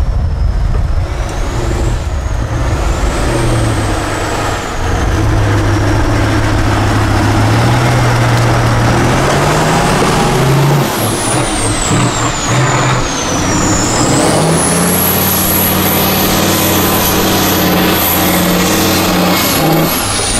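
Diesel engine of a 6x6 Tatra trial truck working hard under load through mud, its revs climbing about halfway through, dipping briefly, then holding higher over the last few seconds. A high whine rises and falls over the engine.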